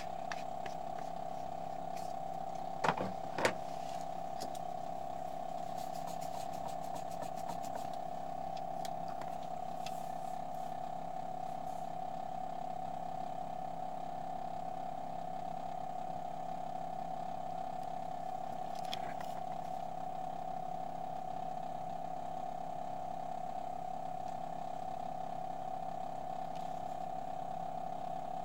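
A steady mechanical hum, with two sharp clicks about three seconds in and a brief run of fast, faint ticks a few seconds later.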